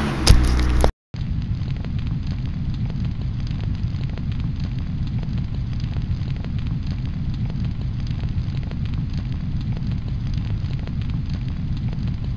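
A thump as the camera is handled, then, after a brief cut to silence about a second in, a steady low roar of flames with fine crackling as a fire sound effect.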